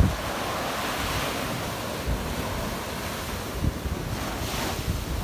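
Surf on a sandy beach: small waves breaking and washing up the sand in a steady hiss that swells about a second in and again near the end, with wind buffeting the microphone.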